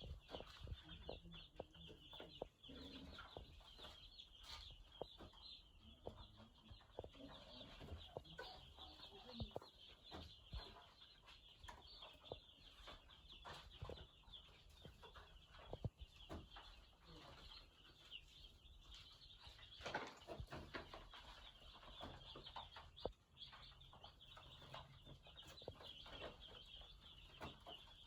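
A brood of day-old broiler chicks peeping continuously, a faint high-pitched chorus, with scattered light clicks and taps throughout.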